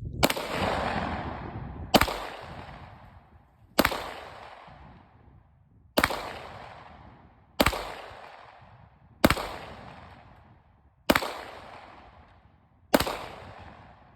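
Firearm shots fired one at a time in a slow, steady series: eight shots about two seconds apart, each followed by a long echo that dies away before the next.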